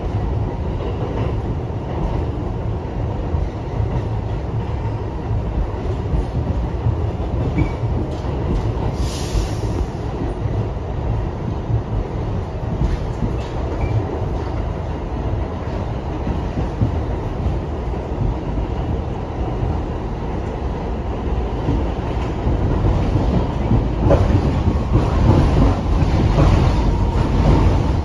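Riding inside an R62A subway car on the 1 train: the steady rumble of the car running on the rails, with wheel clicks over rail joints, growing louder for the last few seconds.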